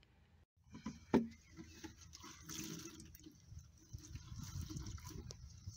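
Dirty bilge water sloshing and dripping as it is scooped by hand out of a narrowboat's bilge-pump sump bucket into a plastic bucket, with a sharp knock about a second in.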